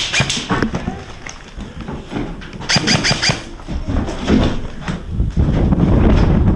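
Airsoft guns firing in short rapid bursts of clicks, about three seconds in. From about five seconds in, a louder low rumbling noise.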